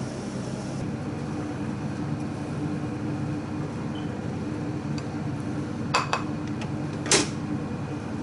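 A ceramic rice bowl clinking twice against a rice cooker's inner pot as rice is scooped, about a second apart near the end, the second clink louder, over a steady mechanical hum.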